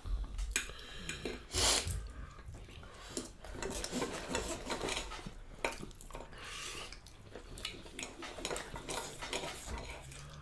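Knife and fork scraping and clicking on a ceramic dinner plate as food is cut: scattered clinks and short scrapes, with a louder scrape about a second and a half in.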